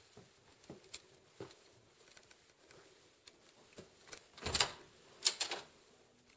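Scattered light taps and clicks of footsteps and camera handling while walking through a small indoor space, with a louder knock about four and a half seconds in, followed quickly by a short run of sharp clicks.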